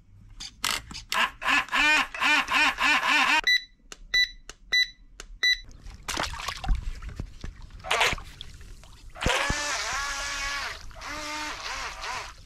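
A mini electric RC boat's motor whines in a quick series of short revs, each rising and falling in pitch, followed by a few short high electronic beeps. Then water splashes as the boat is set in and pushes off, and its motor whines steadily while it runs on the water.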